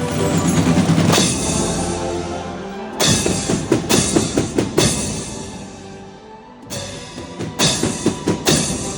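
A Spanish Holy Week agrupación musical, a brass-and-percussion marching band, playing a march. It opens on a held brass chord, then moves into passages of sharp drum and cymbal strikes.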